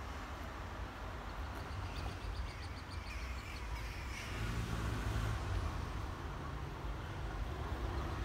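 A bird calling a few times about two to three seconds in, over a steady low outdoor rumble.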